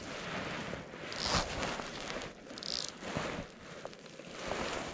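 Fly line stripped in by hand through the rod guides, two short rasping zips about a second and a half apart, over a steady rustling noise of wind and water around the float tube.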